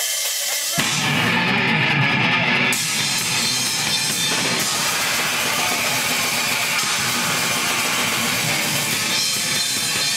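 Live rock band playing loud and noisy, electric guitar over a drum kit, kicking in just under a second in.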